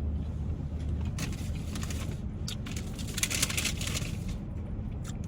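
Close-up chewing and crunching of a sandwich, with crisp crackles clustered between about one and four seconds in. A steady low hum runs underneath.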